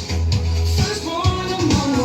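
Background pop song with a steady beat, bass and a sung vocal line.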